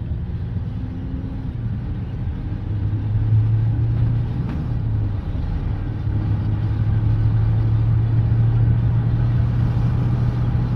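Steady low rumble of a moving car heard from inside the cabin, growing a little louder about three seconds in.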